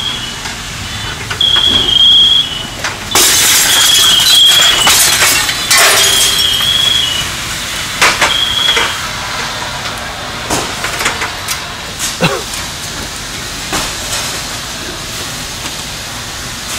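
Fireground noise at a house fire: a high electronic beep repeats about every two seconds over the first nine seconds, while a loud rushing hiss runs from about three to six seconds in. Sharp cracks and knocks follow later.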